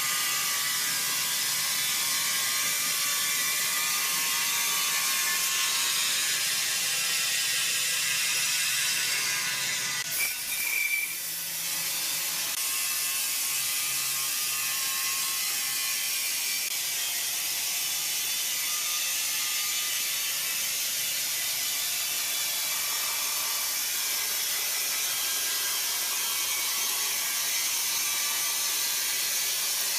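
Wood-milling saw machinery running steadily, a dense high-pitched mechanical noise, with a short break about ten seconds in.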